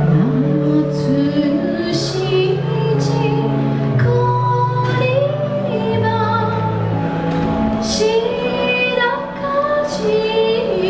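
Woman singing live into a microphone over recorded backing music of long held chords, with a few sharp percussive hits.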